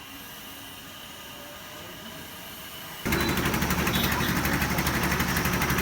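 Quiet background hum, then about three seconds in a loud engine suddenly comes in and runs steadily with a fast, even pulse.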